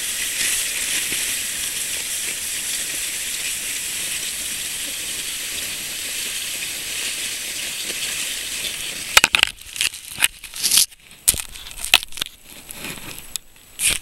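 Sled sliding down a packed-snow run, a steady scraping hiss. About nine seconds in the hiss breaks up into a series of irregular loud scrapes and knocks as the ride comes to its end.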